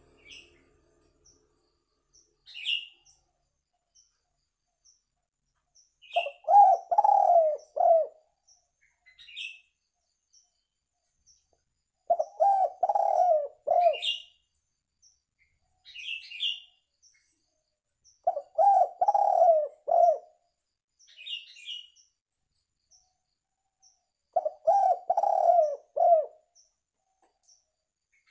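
Spotted dove (tekukur) cooing: four multi-note phrases of about two seconds each, repeated roughly every six seconds, a call used as a lure for trapping. Short high chirps sound between the phrases.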